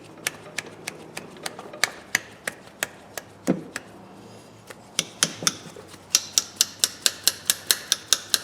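Steel linesman's pliers being worked open and shut over and over, the jaws clicking closed about two or three times a second, then quicker from about halfway through. The pliers are being worked to free a rusted, stiff pivot joint.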